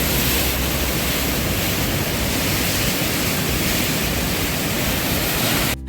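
A steady, loud rushing noise with no pitch, spread evenly from deep rumble to high hiss, that cuts off suddenly near the end.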